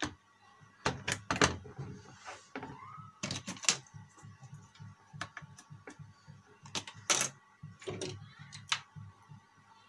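Irregular plastic clicks and knocks of cables and connectors being handled and plugged into a desktop motherboard, several sharp ones in quick succession around one and three seconds in and another loud one about seven seconds in.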